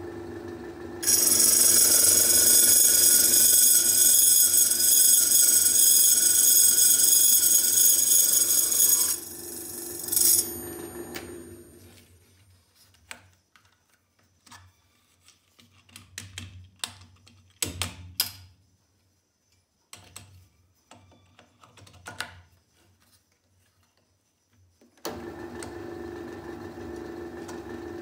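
A drill press spinning a small circular saw blade that cuts a slice off a 12 mm brass rod. About a second in, the cut starts with a loud, high-pitched ringing whine that lasts about eight seconds, after which the motor winds down and stops. This is followed by light clicks and knocks as the wooden jig and the brass are handled, and near the end the drill press starts up again and runs steadily.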